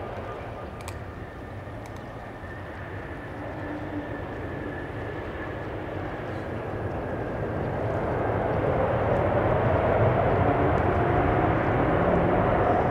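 Jet engines of a Boeing 777-200 airliner rolling out on the runway after touchdown: a steady, broad rumbling rush that grows louder from about two-thirds of the way through.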